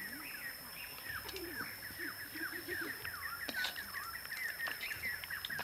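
Birds chirping: a fast run of short whistled notes sliding up and down, with a steady high whine behind them. A few sharp metallic clicks come from a spatula against the wok.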